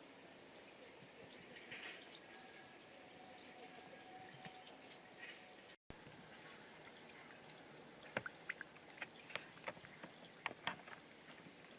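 Water trickling and dripping through an Aqua Play plastic water-toy set, faint and steady at first, then with many small sharp drips and clicks in the second half. The sound cuts out for an instant a little before halfway.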